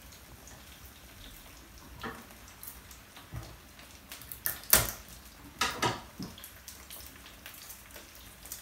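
Scattered taps and clicks of a knife and garlic cloves on a wooden cutting board while garlic is peeled and handled, a few sharp knocks, the loudest about halfway through, over a faint steady hiss.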